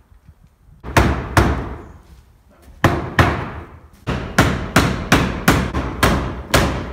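Hammer blows on the wooden jamb of a newly set exterior front door. There are about a dozen sharp strikes: two pairs, then a quick run of eight at about three a second.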